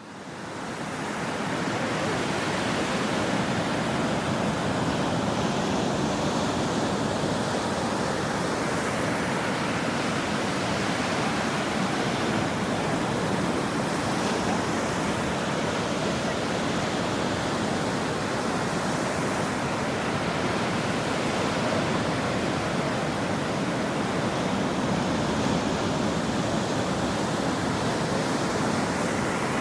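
Ocean surf washing onto a shore: a dense, steady rush of water noise with slight swells. It fades in over the first second.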